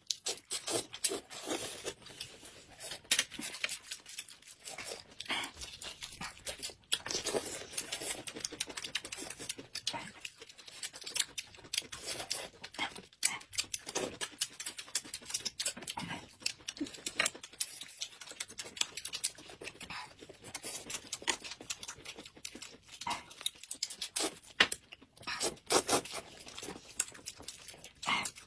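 Close-miked eating: noodles slurped and bamboo shoots peeled, bitten and chewed, an irregular run of small wet clicks and smacks.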